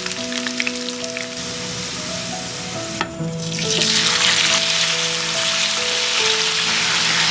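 Food frying in hot oil in a pan, crackling and sizzling. About three seconds in it breaks off briefly, then comes back as a louder, denser sizzle.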